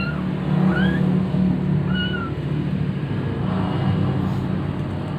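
Young kittens mewing, a few short high cries in the first two seconds, typical of hungry kittens wanting food, over a steady low rumble.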